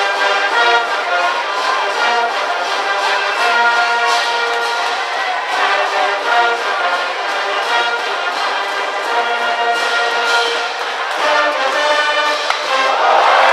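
High school brass band playing a cheering tune in the ballpark stands, with trumpets and trombones carrying a sustained melody.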